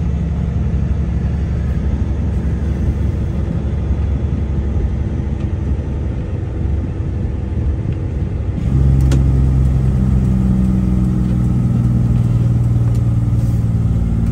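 Truck's diesel engine running with a steady low rumble; about nine seconds in the engine note rises to a louder, steadier hum as the revs come up, with a single light click.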